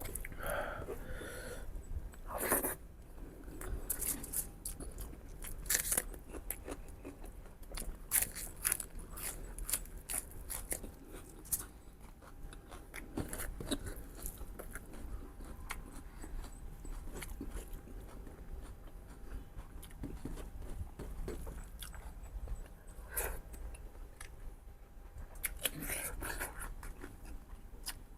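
Close-miked eating of mutton ribs with gravy and rice: wet chewing and biting, with irregular mouth clicks and smacks and a few louder crunches.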